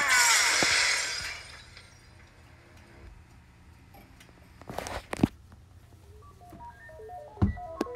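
A crash of shattering glass at the start, its noise fading out over about a second. Then a few sharp knocks around five seconds in, and from about six seconds a simple electronic melody of short stepped notes begins.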